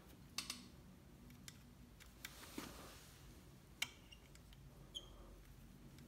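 Faint, scattered small clicks and a brief soft swish from hands handling a compound bow's arrow rest cord, pulling it tighter to retime the rest after the draw weight was lowered.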